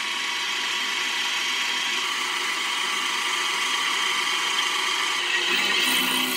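Pillar drill press running a twist bit into a snapped bolt in a cast-iron flange, drilling it out: a steady machine whine with the grinding of the cutting bit. The note shifts slightly near the end.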